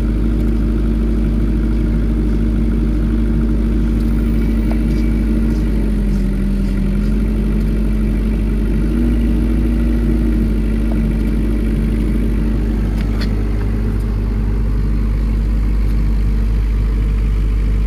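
Atlas Copco QAS 15 KD diesel generator set running steadily with an even hum; its engine pitch sags briefly about six seconds in and comes back up about three seconds later.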